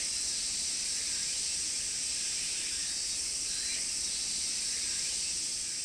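A steady, high-pitched chorus of insects, an even shimmering hiss with no rhythm or pauses.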